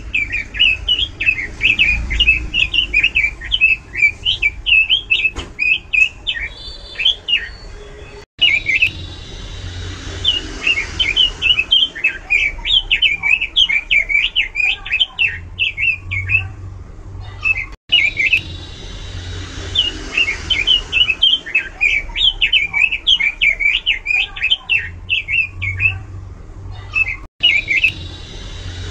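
Pekin robin (red-billed leiothrix) singing a loud, fast, varied warbling song of rapid rising and falling notes. The song comes in long runs broken by brief silent gaps about every nine seconds, over a low steady hum.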